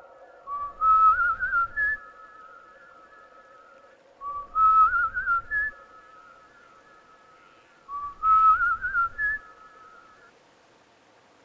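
Someone whistling a short rising tune three times, about four seconds apart, each phrase trailing off in a held note.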